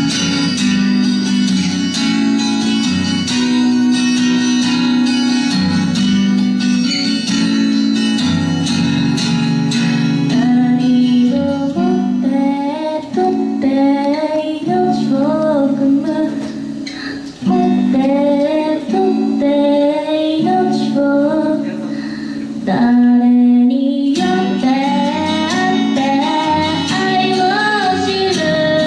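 Acoustic guitar strummed in steady chords, alone for roughly the first ten seconds; then a woman's singing voice comes in and carries the melody over the guitar.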